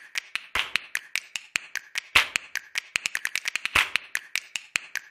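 A rapid, uneven series of sharp clicks or taps, about seven a second, each with the same short ring.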